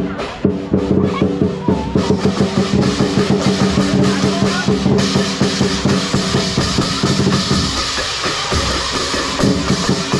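Lion dance drum beaten in a fast, dense rhythm with cymbals clashing along, the cymbals growing louder about halfway through.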